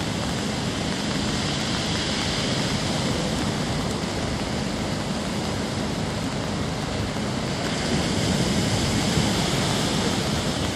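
Storm surf breaking and washing along a concrete seawall: a steady rush of water that swells somewhat louder about eight seconds in.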